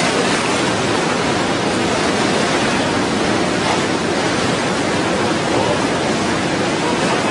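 The Ganga in heavy flood: a steady rushing of fast, muddy floodwater.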